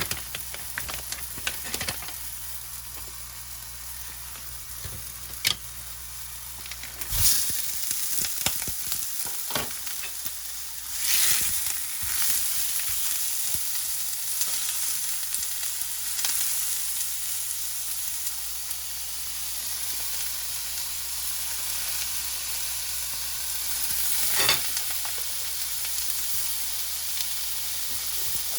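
Food sizzling and frying in a hot pan, a steady hiss with scattered small clicks and pops. It swells louder a few times, around seven and eleven seconds in and again near the end.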